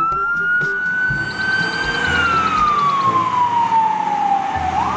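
Fire engine's wail siren: the tone rises for about two seconds, falls slowly for nearly three, then sweeps quickly back up near the end, over the truck's engine and road noise as it drives on an emergency run.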